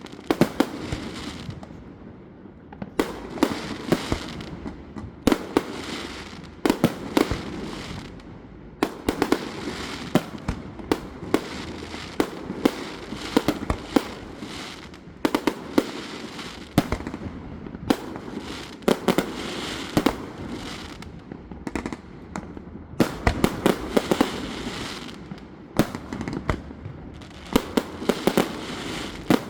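Fireworks display: sharp bangs and pops in irregular clusters over a continuous rumble of reports.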